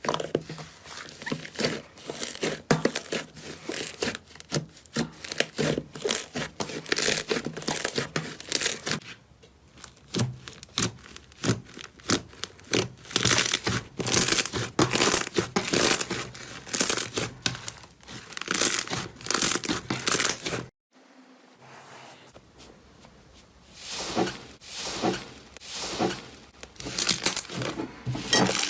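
Slime being squeezed and stretched by hand, a dense run of crackling, tearing pops and clicks. It cuts off abruptly about two-thirds of the way through and starts again a few seconds later.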